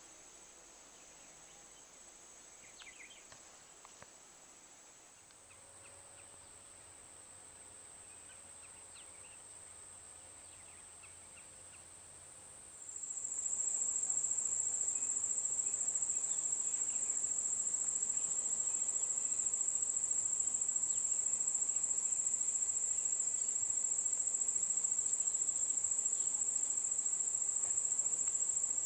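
Insect chorus: a steady high-pitched trill that suddenly gets much louder about halfway through and holds there, with a few faint short chirps in the first half.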